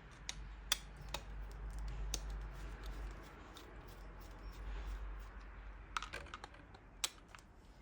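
Scattered light clicks and knocks from handling the plastic parts of a partly dismantled stand fan, over a low steady hum.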